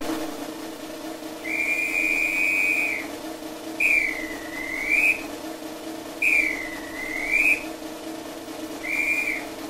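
Whistling over a steady low hum: a long held note, then two notes that dip and swoop back up, then a short note near the end.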